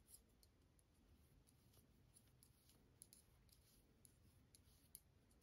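Near silence with scattered faint, light clicks of metal knitting needles as stitches are worked.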